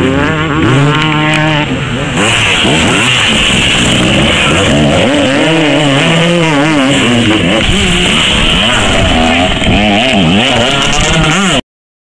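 Motocross bikes racing past, several engines revving hard and overlapping, their pitch rising and falling as riders work the throttle. The sound cuts off abruptly near the end.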